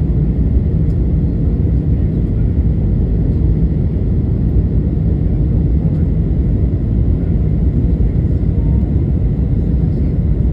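Steady low rumble of an airliner's jet engines and rushing air, heard inside the passenger cabin on approach to landing, with a faint steady high tone underneath.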